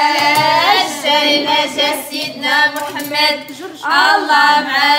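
A high voice singing a melody, holding long notes that waver in pitch, with short breaks between phrases.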